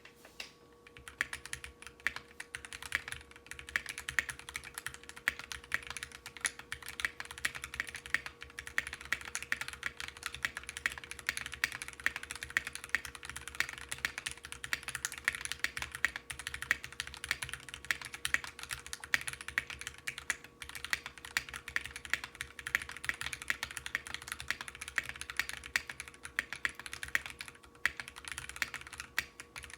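Fast, continuous typing on a Tofu 65% mechanical keyboard with Zealios v2 62g tactile switches lubed with Krytox 205g0, a brass plate and GMK keycaps. The keystrokes come in a dense stream of clicks, with a few brief pauses.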